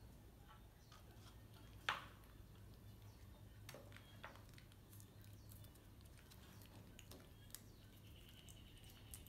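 Near silence: a low steady room hum with a few faint clicks and taps, one sharper click about two seconds in, and a faint high steady tone starting near the end.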